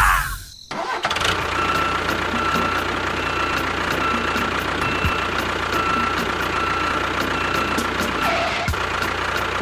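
Steady engine-like running noise with a faint constant whine, starting about a second in after a short loud sound and a brief drop.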